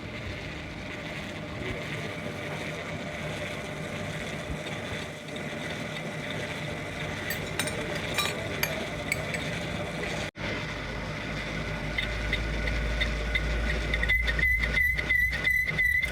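Steady workshop noise with a few light metal clinks, then near the end a high whistling tone that pulses about three times a second.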